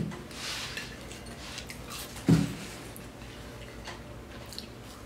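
Faint eating sounds from chicken wings: small clicks and smacks of chewing, with a short low thump a little over two seconds in.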